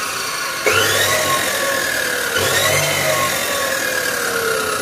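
Panda PA352P 350 mm abrasive cut-off saw running with no load, its 2300 W motor switched on in bursts. Its whine jumps up sharply about two-thirds of a second in and again about two and a half seconds in, sagging slowly in pitch between.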